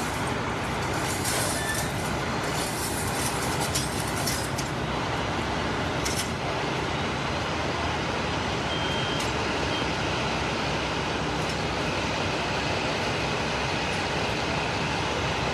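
Steady drone of idling vehicle engines and street traffic, with a few faint clicks in the first few seconds.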